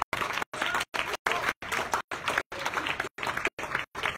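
A small group applauding, the clapping broken up by frequent brief dropouts in the audio.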